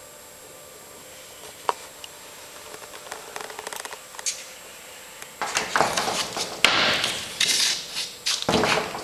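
Handling of a stretched canvas painting on its wooden frame as it is tilted and turned over: a single click at first, then scattered small knocks, and from about halfway on loud rustling, scraping and knocking.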